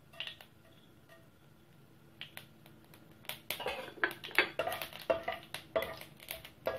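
Mustard seeds popping and spluttering in hot mustard oil as they are tempered: a few scattered pops at first, then many sharp pops from about three and a half seconds in as the seeds start to crackle.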